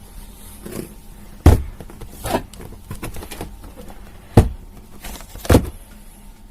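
Handling of a plastic DX Lost Driver toy belt: four sharp clicks and knocks, the loudest about a second and a half in and again near four and a half seconds, with softer rattling between.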